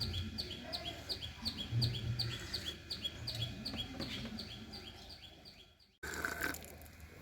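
A small bird chirping over and over, about three short falling chirps a second. Low rumbling swells sit underneath. The chirping cuts off abruptly about six seconds in, and a brief different sound follows.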